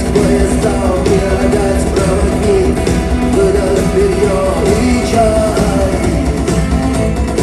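Rock band playing live: guitars and band backing a sung vocal line, loud and continuous.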